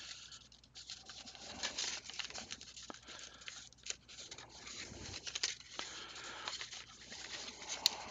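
A folded sheet of origami paper being handled and pinched into shape: soft, irregular rustling and crinkling with many small ticks and scrapes as the creases are pressed.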